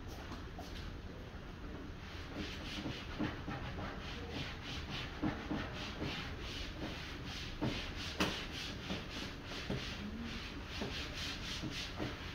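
Curry chicken simmering in a covered pot: irregular bubbling pops and crackles under a glass lid, getting busier about two seconds in.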